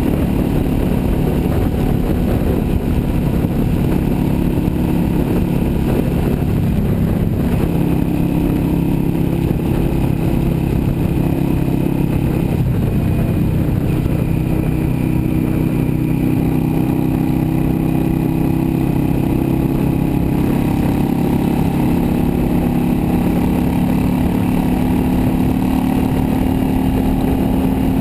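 Yamaha V Star 650 Custom's V-twin engine running steadily at highway cruising speed, heard from the handlebars with wind and road noise; the engine note rises slightly in the last few seconds.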